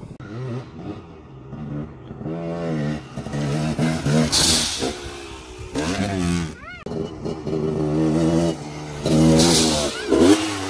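Dirt bike engine revving up and down as the bike climbs a dirt jump and takes off, with a sharp high rev that rises and falls about two-thirds of the way in. Two short bursts of rushing noise come in partway through and near the end.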